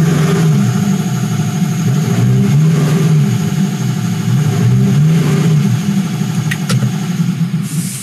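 2014 Chevrolet Malibu's four-cylinder engine running unevenly, its note wavering up and down, with a misfire on cylinder 3 that the technician judges secondary-ignition related.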